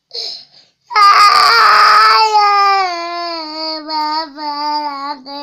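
Young boy crying: a short sob, then from about a second in one long wail that slowly falls in pitch and wavers, lasting over four seconds.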